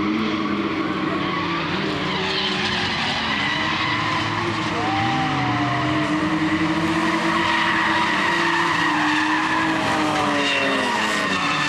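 Drag racing cars' engines running hard at the strip, their pitch rising and dipping through the run over a steady wash of engine and tyre noise.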